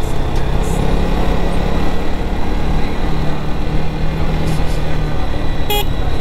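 KTM Duke 250's single-cylinder engine running while the bike is ridden, under heavy wind rush on the microphone; the engine note shifts slightly in pitch. A short, sharp high-pitched beep sounds near the end.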